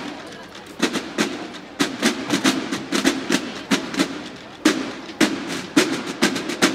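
Banda de guerra snare drums playing a marching cadence together, a rhythmic pattern of sharp strokes with some strongly accented hits standing out above quieter playing.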